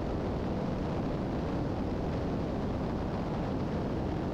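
Steady engine and propeller drone inside the cabin of a Piper Seneca III twin-engine airplane on approach.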